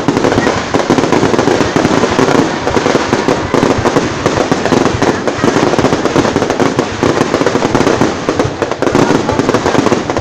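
Fireworks display going off in a dense, continuous barrage of bangs and crackles, loud throughout.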